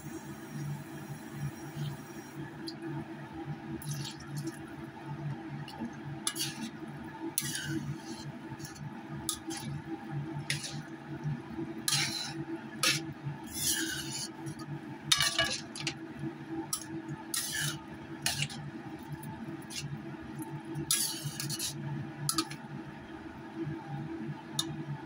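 A spatula stirring coconut-milk broth with petai beans and pea eggplants in a metal wok, making irregular scrapes and knocks against the pan with liquid sloshing, over a steady low hum.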